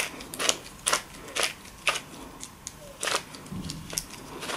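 3D-printed plastic lightsaber hilt section being screwed back on by hand: short, sharp scraping clicks of the threaded parts, about two a second, as the hands twist in strokes.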